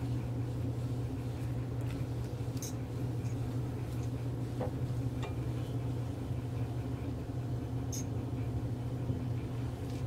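A handful of faint, scattered metal clicks and taps from an Allen key being turned to tighten a bicycle dropper post, over a steady low hum.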